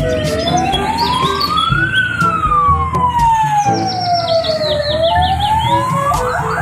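Ambulance siren sounding a slow wail: the pitch rises for about two seconds, falls for about three, then starts to rise again near the end.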